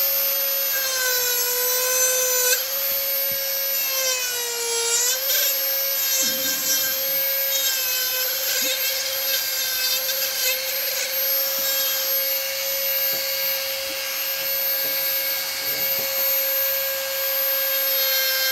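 Dremel rotary tool on a flex shaft, its burr grinding into wood: a steady high whine over a rasping grind. About four to five seconds in the pitch sags briefly under load, then recovers.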